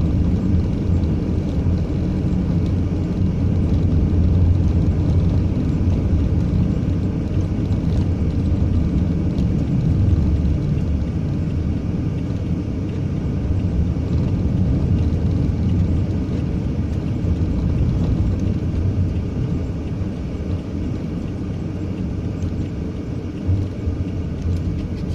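A vehicle running: a steady low engine and road rumble.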